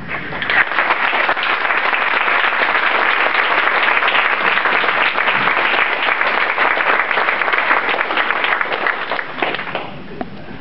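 An audience applauding: many hands clapping together. It starts about half a second in and dies away near the end.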